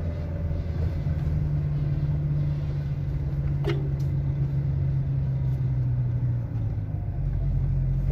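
Small motorcycle engine running steadily under way, with road and wind noise, heard from on the bike. A short rising squeak cuts through a little before halfway.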